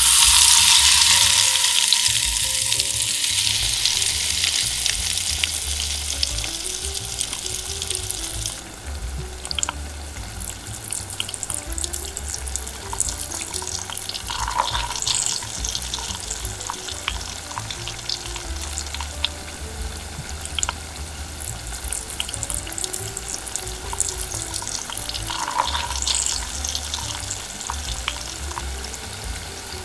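A Cheetos-crusted cheese corn dog goes into hot oil in a miniature wok and sizzles loudly at once. After about eight seconds the sizzle settles into steady bubbling and crackling frying, with small pops.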